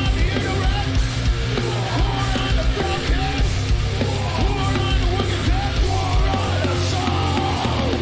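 Live recording of a rock-metal band playing: distorted electric guitars, bass and drums with shouted vocals, steady and loud throughout.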